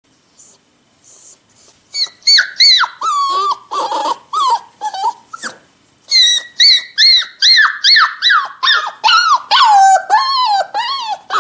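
A puppy crying: a rapid series of short, high-pitched whimpers and whines, each sliding down in pitch. They start faint and become loud about two seconds in, with a brief pause around the middle.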